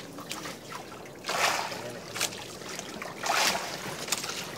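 Sea water splashing and lapping against the side of a small fibreglass outrigger boat, with several short splashes over a steady wash.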